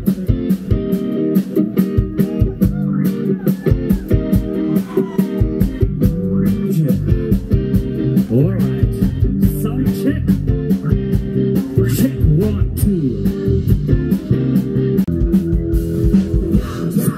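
Live rock band playing loud through a PA: electric guitars, bass and drums with a steady beat, with a singer's voice over them at times.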